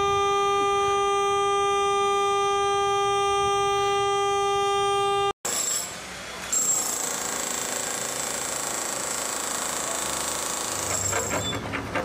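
Car horn held down in one long unbroken blast, a single steady note, pressed by a dog waiting in the car. It cuts off abruptly about five seconds in. A steady hissing noise with a high whine follows.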